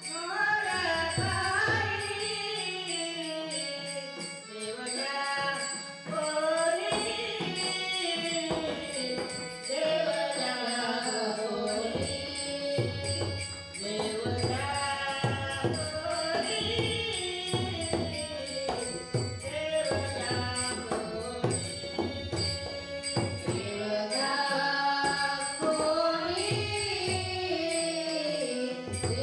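Women singing a Marathi devotional abhang in a bhajan, with a melodic vocal line over a steady rhythm of jingling hand cymbals and drum beats.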